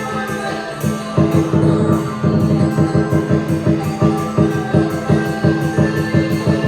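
Chinese dragon dance percussion music: drum and cymbals beating a steady, rapid rhythm of roughly three strokes a second, growing louder about a second in.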